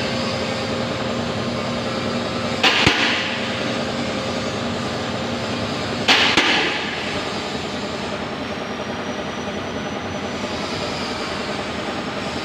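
Steady mechanical background noise with two short, loud, hissing bangs, the first about three seconds in and the second near the middle.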